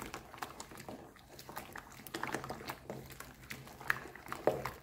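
Wooden spoon stirring powdered detergent into water in a plastic tub: irregular small sloshes and clicks of the spoon against the basin. A faint steady hum runs underneath.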